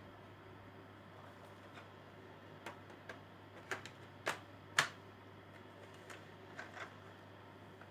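A handful of short clicks and knocks from a cordless handheld vacuum cleaner being handled before it is switched on. They come irregularly over a few seconds, the loudest about five seconds in.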